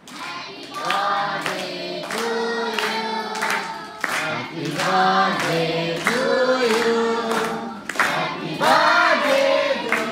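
A group of children singing a birthday song together, clapping in time about twice a second.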